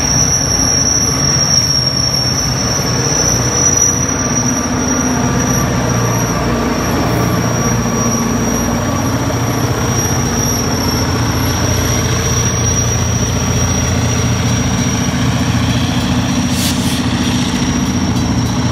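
Union Pacific diesel locomotives, the train's rear distributed-power units, passing with their engines running over the rumble of wheels on rail, with a steady high-pitched squeal.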